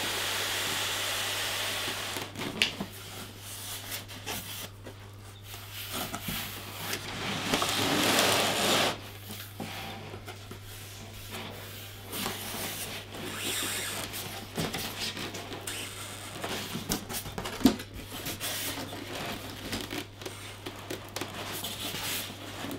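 Polystyrene foam packing and a cardboard box rubbing and scraping as a monitor is worked out of its packaging, loudest about eight seconds in, with a sharp knock a few seconds in and another near the end. A steady low hum runs underneath.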